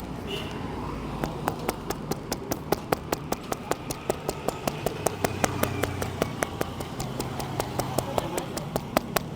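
Barber's hands tapping and slapping on a head during a head massage: a quick, even run of sharp claps, about five a second, starting about a second in.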